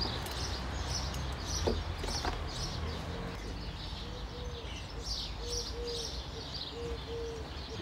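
Songbirds chirping in short, rapid calls, joined from about three seconds in by a low, repeated cooing call, over a steady low rumble.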